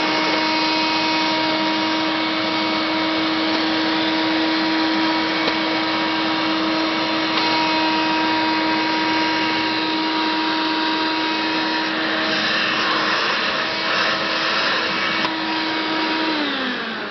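Hoover Innovation Turbo Master upright vacuum cleaner running steadily, a whine over its rushing airflow. Near the end it is switched off and the motor's pitch slides down as it winds down.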